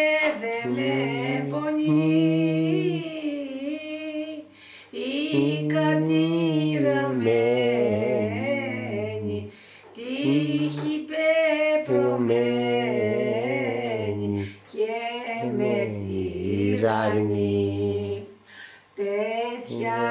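An elderly woman singing a slow Greek song from Asia Minor unaccompanied. She draws out long phrases with a wavering pitch, broken by short pauses.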